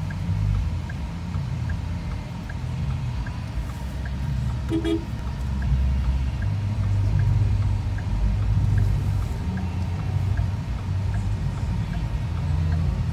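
Car cabin in slow traffic: low engine and road rumble with a faint regular ticking about two to three times a second, and one short car horn toot about five seconds in.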